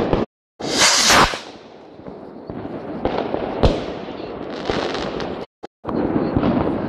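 New Year's midnight fireworks going off: a dense, continuous crackle of bursts and bangs. A loud burst comes about a second in and a sharp bang a little past halfway, and the sound cuts out completely twice for a moment.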